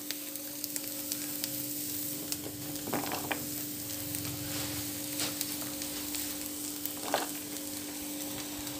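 Water boiling in a clay pot, a steady bubbling hiss with a low hum under it, broken by a few soft splashes about two seconds apart as chopped vegetables are dropped into the water.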